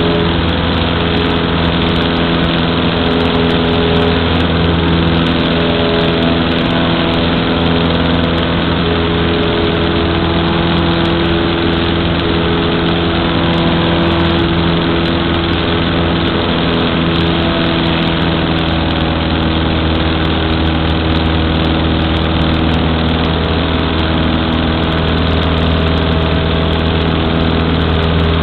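Cessna 152's four-cylinder Lycoming O-235 engine and propeller, heard inside the cabin, running at a steady drone with an even pitch throughout.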